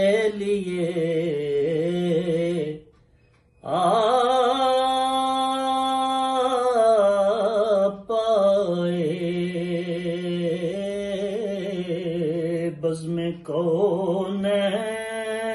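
A man singing a naat in Urdu without accompaniment, drawing out long, ornamented notes with vibrato. He stops for a breath about three seconds in.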